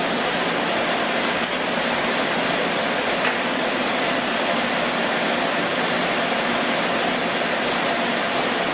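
Steady fan and air-conditioning hum, with two faint metallic clicks as the steel top lid of the rack server is released and lifted off.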